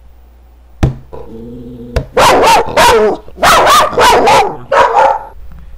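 A dog barking repeatedly in three quick bunches, after two sharp clicks.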